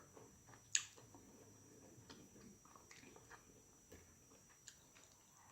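Near silence with faint eating sounds: small scattered clicks and chewing, with one sharper click just under a second in.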